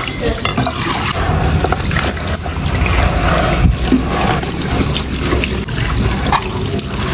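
Kitchen tap spraying steadily onto dishes in a stainless-steel sink, with water splashing as a plate and a cup are rinsed under it, and a few light knocks of the dishes.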